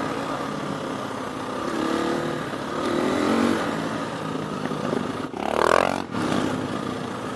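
Dirt bike engine running at riding speed, with wind rush over the microphone. There is a brief louder swell about five and a half seconds in.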